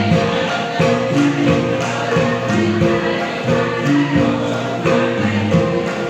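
Dance music with a repeating melody of held notes over a steady beat.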